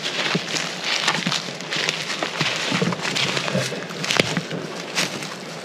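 Footsteps crunching on dry pine straw and twigs, an irregular run of small crackles.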